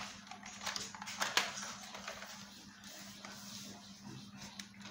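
Light plastic clicks and scrapes from handling an LED tube light's plastic housing and end cap, with the sharpest clicks about a second in. A faint steady hum runs underneath.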